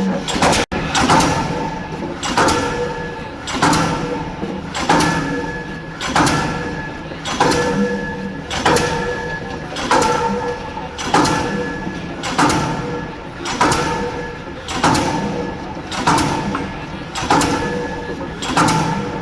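K25 diesel pile hammer driving a spun concrete pile: a heavy blow about every 1.2 seconds in an even rhythm, each blow followed by a ringing tone.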